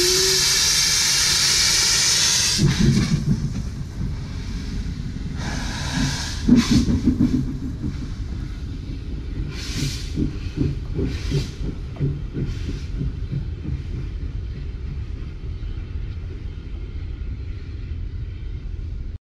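Sri Lanka Railways Class B2B steam locomotive venting a loud, steady hiss of steam from its cylinder cocks, which stops about two and a half seconds in. It then pulls away with low exhaust chuffs and separate bursts of steam hiss that fade as it moves off.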